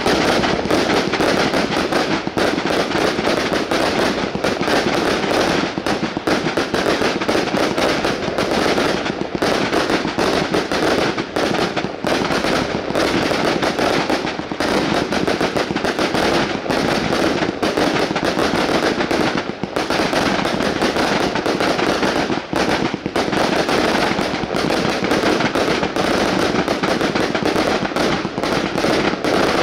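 A 360-shot consumer firework cake firing continuously: a rapid, unbroken stream of launches and bursting reports with no pauses.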